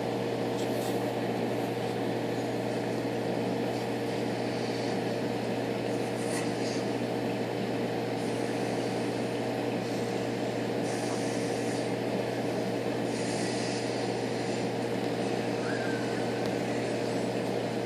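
Steady hum of running reef aquarium equipment, with one clear steady tone over an even noise.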